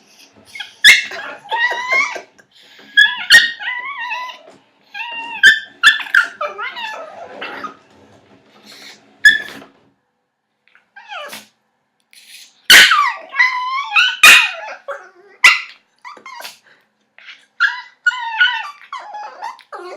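Yorkshire terrier puppy making strange, funny vocal noises: a string of high, wavering yips and whining calls that bend up and down in pitch, coming in bursts that each start sharply, with a short lull about halfway through.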